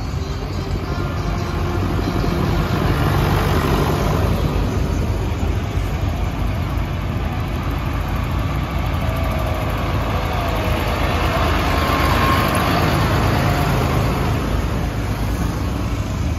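Diesel engines of a line of farm tractors running as they drive slowly past one after another, swelling louder about 3 seconds in and again about 12 seconds in as tractors come near.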